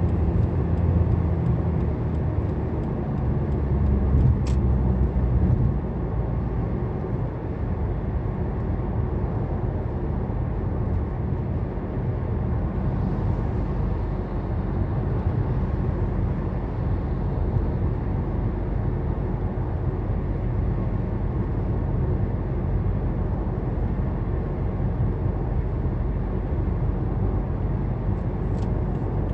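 Steady engine and tyre road noise inside a car's cabin at dual-carriageway speed, with a heavier low rumble for the first few seconds. A faint hiss swells about halfway through as another car passes alongside, and there is a small tick about four seconds in and another near the end.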